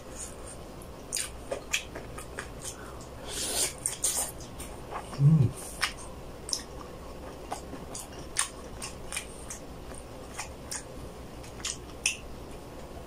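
Close-miked chewing with wet lip smacks and scattered mouth clicks, and a short low thud about five seconds in.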